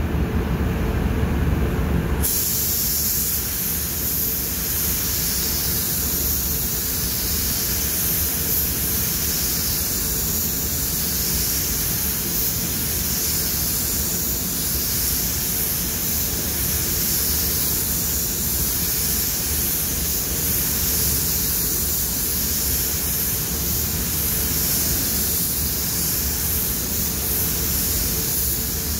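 Spray gun hissing steadily as it lays a coat of automotive clearcoat, the air turning on about two seconds in, over a low steady rumble.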